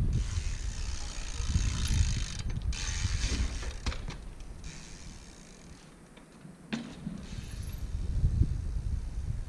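Street-trials bike being ridden and hopped on a stone wall: mechanical clicking and rattling from its drivetrain and freewheel, over a low rumble. There is a sharp knock about two-thirds of the way through, and another softer one near the middle.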